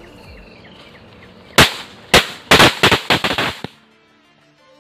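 A string of small red bijli firecrackers going off: a rapid, irregular run of sharp bangs, about eight in two seconds, starting about one and a half seconds in, then a short pause near the end.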